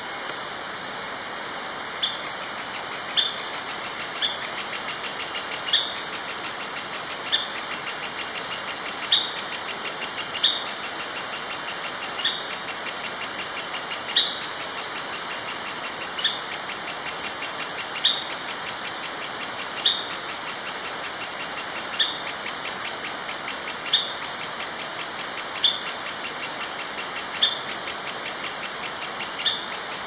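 A young female orange-backed woodpecker calling: a string of about seventeen short, sharp, high-pitched notes, one every one to two seconds, beginning about two seconds in.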